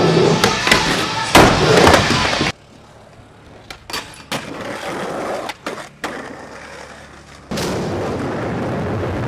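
Skateboard wheels rolling on concrete, with sharp clacks from board pops and landings. The sound drops off abruptly about two and a half seconds in to a quieter stretch of scattered clicks, then jumps back to steady rolling noise near the end.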